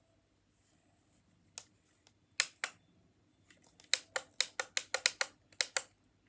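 Alarm clock buttons clicking as they are pressed to set the time: a few separate presses, then a quick run of about nine presses in a row.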